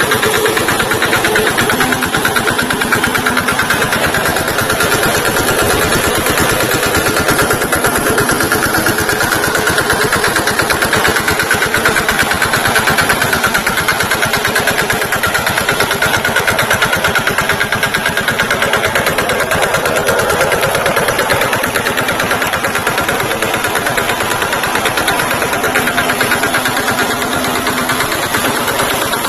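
VST Shakti tractor's diesel engine running steadily, its firing heard as a fast, even chugging.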